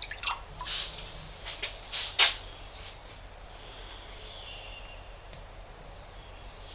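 Water splashing and dripping as a hand lifts a cut-off chunk of steel out of a pot of quench water: several short splashes and drips in the first two seconds, the last one loudest. After that only a faint steady hiss while the piece is handled.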